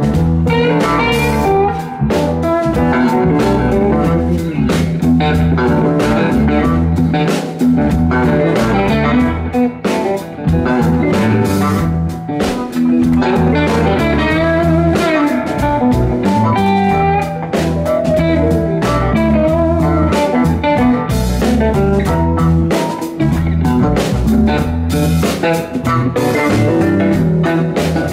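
A live rock band playing: electric guitar lines over electric bass and a drum kit.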